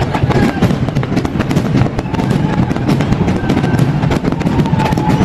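Fireworks bursting and crackling in rapid succession, with music playing along.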